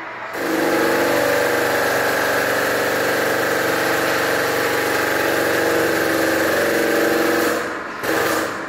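A motor running steadily at a constant speed, then stopping or cutting out near the end.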